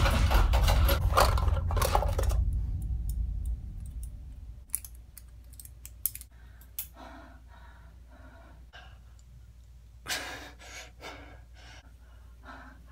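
A man panting heavily, then a few sharp clicks and small rattles as he handles a small metal blade, then short panting breaths again about ten seconds in.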